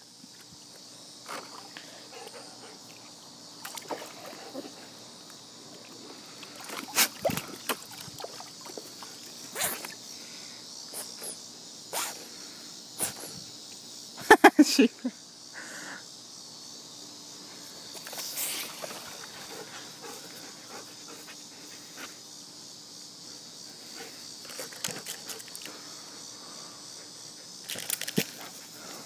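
Steady chirring of insects, with scattered short knocks and rustles. About halfway through, a German shepherd gives a quick run of three or four loud barks.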